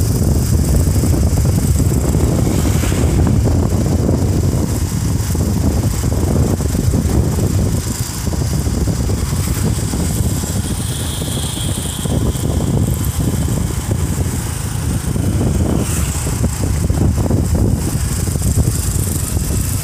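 Steady wind buffeting the microphone with tyre and road noise from a motorcycle riding down a winding hill road, a dense low rumble without a clear engine note.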